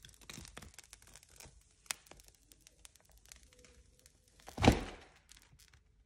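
Crinkling and tearing of a thin strip being peeled and handled by hand at the edge of a cured epoxy resin plate, with many small clicks. One louder thump about four and a half seconds in.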